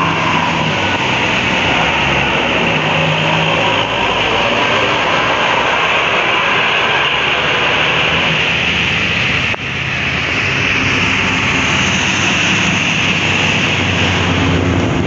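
Heavy vehicles (buses and a truck) passing on a wet road: a steady loud hiss of tyres on water over the low hum of their diesel engines.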